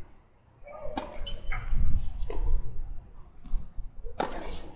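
Tennis ball struck by rackets and bouncing on the hard court during a rally: sharp pops about a second in, again at about one and a half and two and a half seconds, and a louder, longer smack a little after four seconds.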